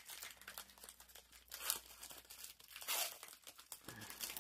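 Pokémon trading cards being leafed through and slid one behind another in gloved hands: a run of dry papery scrapes and flicks, loudest about a second and a half and three seconds in.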